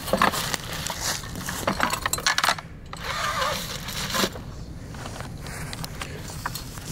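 Dog-proof raccoon traps and their steel cable clinking and rattling as one is pulled out of a bucket, the clatter densest over the first couple of seconds, followed by footsteps and rustling in dry leaves.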